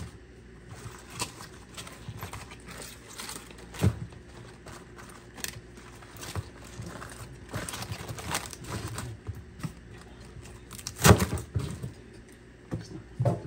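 Irregular knocks, clicks and light clatter of things being handled, with one loud knock about eleven seconds in.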